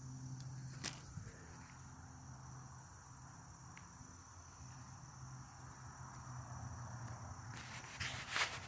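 Insects trilling steadily in a high, even drone, over a faint low hum, with a single click about a second in and a few rustling, step-like noises near the end.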